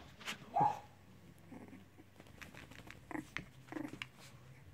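Cavalier King Charles Spaniel puppies playing: one short high yip about half a second in, then two brief lower growly calls a little after three seconds in, with faint clicks and scuffles of small paws in between.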